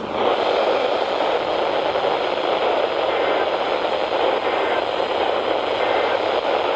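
Steady radio static from a NOAA Weather Radio receiver: an even hiss with no voice on the channel.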